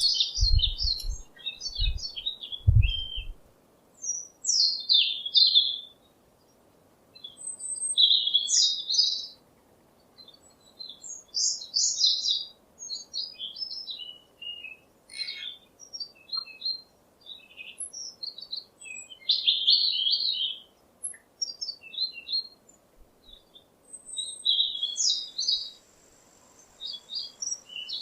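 Songbirds chirping and twittering in short, high phrases separated by brief pauses. A few dull low thumps come in the first three seconds.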